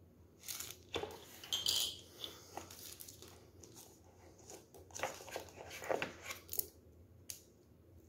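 Thin plastic wrapping crinkling and a cardboard box insert rustling and scraping as packaging is handled by hand. The sounds come in two bursts of rustles and light taps, and there is one sharp click near the end.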